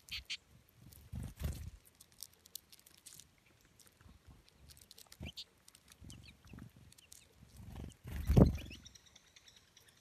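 American goldfinches feeding on seed at close range: scattered small clicks of beaks picking and cracking seed hulls, a few faint high chirps, and soft low flutters of wings, the loudest about eight and a half seconds in.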